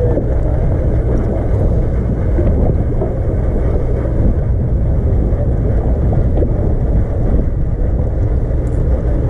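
Sportfishing boat's engine running with a steady low rumble, with wind buffeting the microphone.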